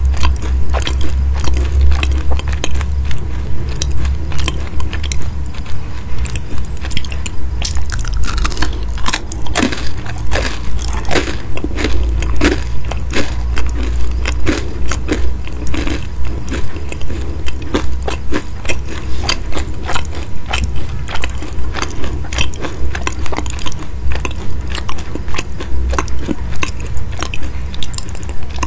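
Close-miked chewing of crisp, flaky baked meat-topped pastries: steady crunching and crackling, the chews coming at about two a second.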